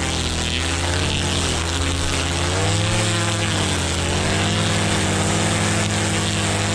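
Motor of a long-shafted lawn trimmer running steadily while it cuts a lawn edge, its pitch dipping and rising a few times as the load changes.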